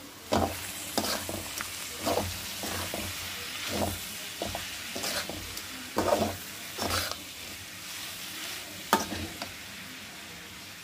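A metal spoon stirring and scraping bitter gourd, onions and ground spices around a metal kadhai in irregular strokes, over the steady sizzle of the oil the vegetables are frying in. The strokes stop about nine and a half seconds in, leaving only the sizzle.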